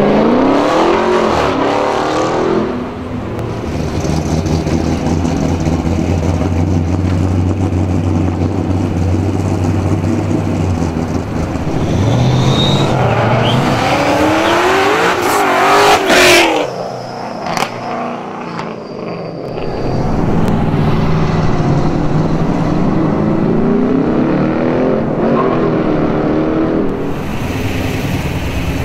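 Muscle cars accelerating hard away from a stop one after another, each engine note climbing in pitch as it revs up. There are three pulls: one just after the start, one in the middle that peaks very loud, and one in the last third. Between them a lower, steady engine rumble holds.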